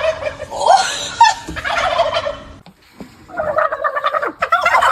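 Turkeys gobbling: rapid rattling gobbles, a short lull about two and a half seconds in, then another gobbling bout.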